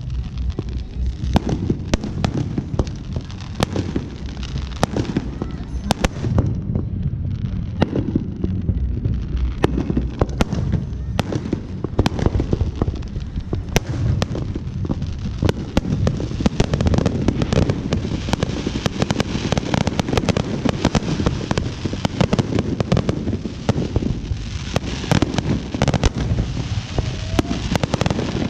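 Fireworks going off: a dense, continuous run of sharp bangs and crackles, many a second, over a steady low rumble.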